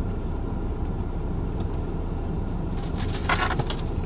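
Steady low rumble inside a car cabin, with a brief rustle, like paper or a wrapper being handled, a little after three seconds in.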